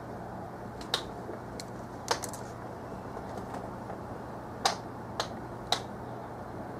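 A handful of sharp, irregularly spaced clicks, five in all, over a steady low hum of room noise.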